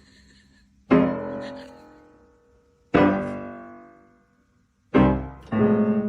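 Piano chords struck three times, about two seconds apart, each left to ring and fade, with quicker notes following near the end.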